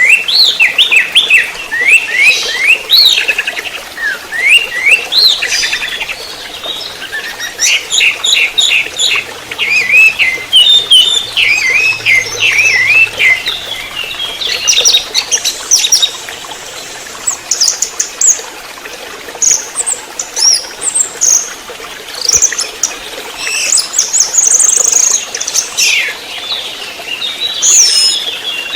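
Young orange-headed thrush singing: a long run of quick, varied chirps and whistled phrases, with thinner, higher notes in the second half.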